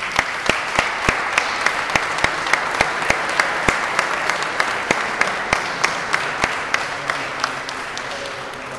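Audience applauding, with one person clapping close by in a steady beat of about three claps a second. The applause fades away near the end.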